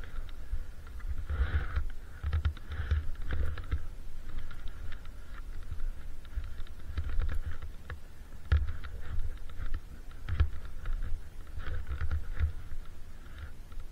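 Ogso Spencer freeride skis sliding through deep powder snow, a hiss that swells and fades as the skier moves, with wind buffeting the camera microphone in low rumbles and scattered small clicks.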